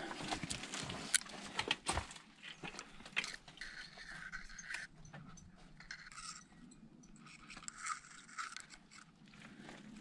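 Faint scattered scrapes, crunches and clicks, as of someone moving and handling things among debris. They are densest in the first two seconds, then thin out into quieter rustling.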